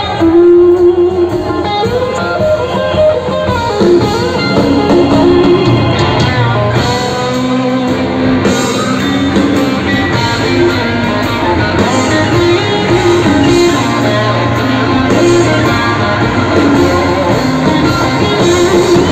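Blues-rock trio playing live: electric guitar, keyboard and drums together, heard from the audience in a large hall.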